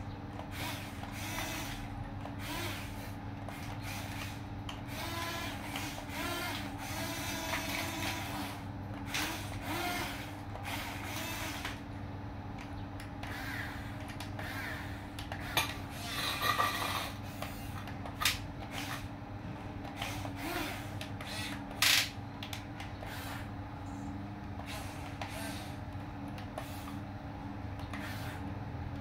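Huina 1550 remote-control excavator's small electric motors whirring steadily as its boom, arm and bucket move, with scrapes and clicks from the bucket working in sand and gravel. A few sharper knocks stand out, the loudest about 22 seconds in.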